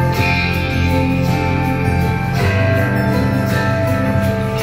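Music playing steadily through a Bose Solo 15 TV soundbar during a playback test.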